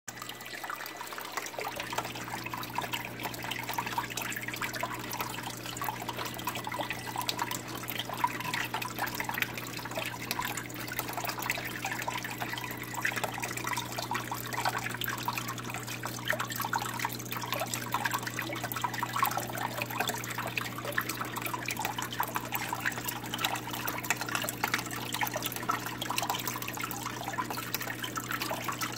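Water trickling and dripping steadily in a terrarium's water feature, running off driftwood and rock into a shallow pool, with a steady low hum underneath.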